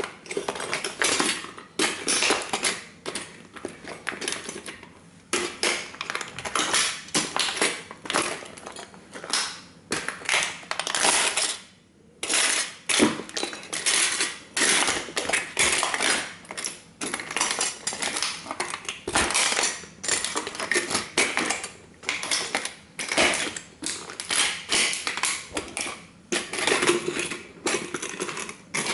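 Tin-plate toy car crumpling and crackling under heavy lug-soled boots, a steady run of sharp metallic crunches mixed with clinks of loose small metal parts. There is a short lull about twelve seconds in.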